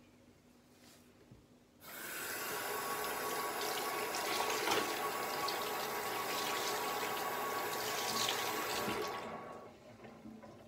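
Bathroom tap running into a sink while a face is rinsed under it, with irregular splashing. The water starts suddenly about two seconds in, runs steadily, and is turned off near the end.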